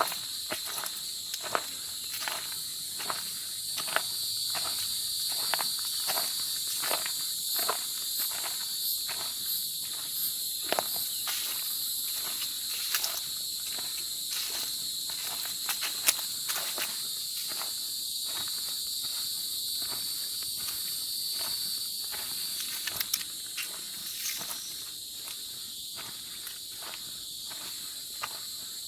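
Footsteps of a hiker walking at a steady pace along a forest trail, about two steps a second, over a constant high-pitched chorus of insects.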